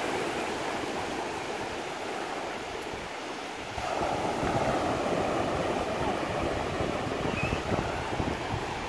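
Ocean surf breaking and foam washing up the sand, swelling louder about four seconds in as a wave crashes.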